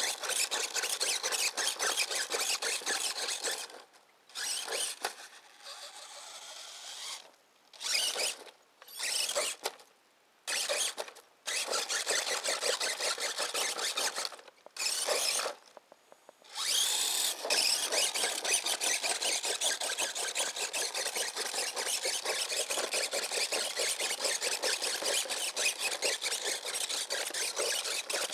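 Electric motor and gear drivetrain of an Axial RC scale crawler whirring as it drives. The whir is steady at first, then comes in short bursts with pauses between them from about four seconds in as the throttle is worked on and off, and runs steadily again in the second half.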